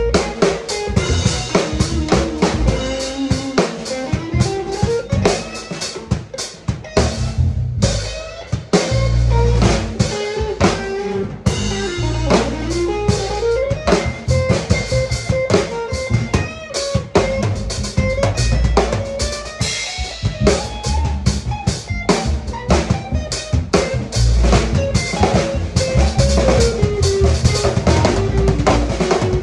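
Electric guitar and drum kit playing live together: the guitar plays a moving single-note melody over drums played with sticks, with snare, rim clicks, cymbals and bass drum.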